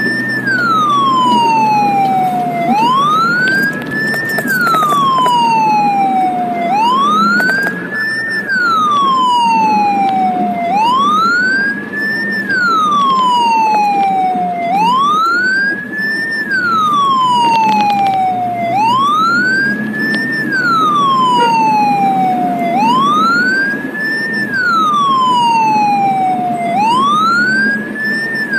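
Ambulance siren wailing: each cycle rises quickly, then falls slowly, repeating about every four seconds. It is heard from inside the ambulance's cab over the steady rumble of the engine and road.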